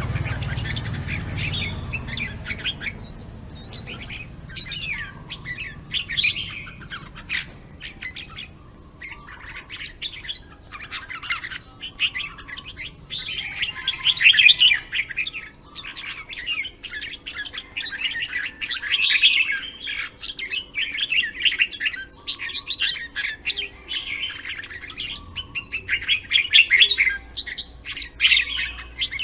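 Red-whiskered bulbuls singing and calling, with quick bursts of bright chirps and trills that come and go throughout.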